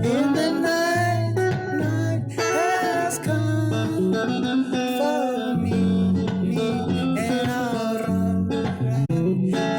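Music: a song with plucked guitar over a bass line stepping between notes, and a gliding melody line above.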